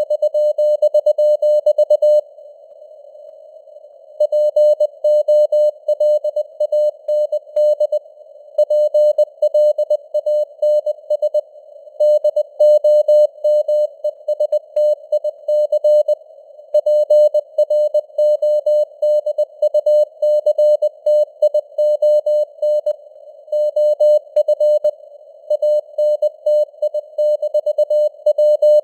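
Morse code (CW) sent at 20 words per minute: a single steady mid-pitched beep keyed on and off in dots and dashes, over a hiss of simulated radio noise. About two seconds in, the keying stops for about two seconds before it resumes.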